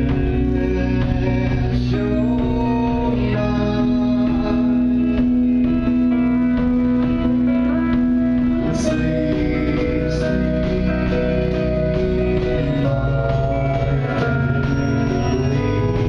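Band music: sustained keyboard chords with electric guitar, at a steady level.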